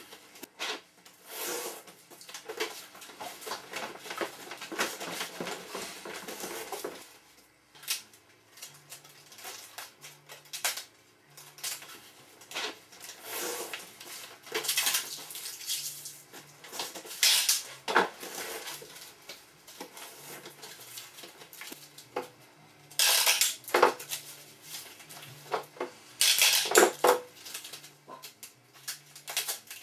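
Hard objects clattering and clinking as they are handled, in irregular bursts with some scraping; the loudest clatters come late on.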